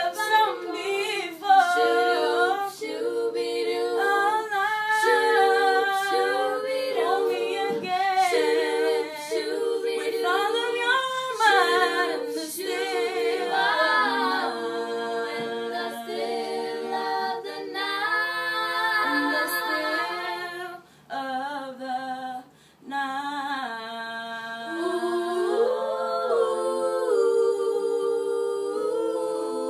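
A small group of young girls singing together a cappella, unaccompanied, with a couple of brief breaks partway through and long held notes near the end.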